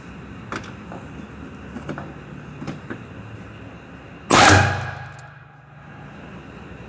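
A few light clicks and knocks, then one loud sudden metallic bang about four seconds in that rings out briefly.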